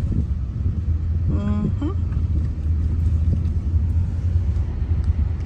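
Steady low rumble of a car driving, heard from inside the cabin. A brief vocal sound comes about a second and a half in.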